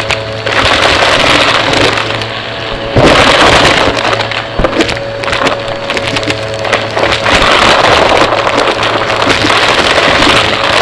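Vacuum cleaner running at full power, its motor humming steadily under a loud rush of air. Debris crackles and rattles as it is sucked up, and the sound swells and dips as the vacuum is pushed back and forth.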